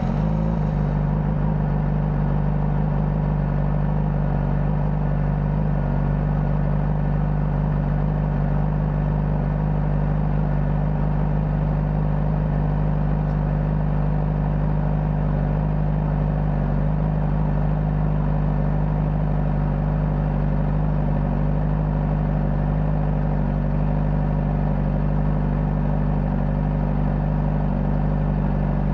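Honda CBR600RR's inline-four engine idling steadily through its stock exhaust, with an even, unchanging pitch.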